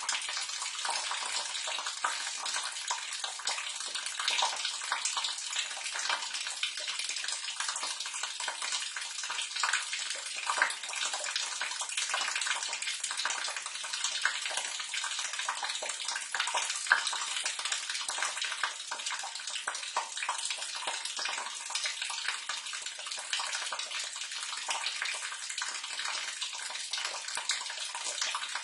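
Water pouring and splashing steadily into a sewer drain, a constant rush of small splashes.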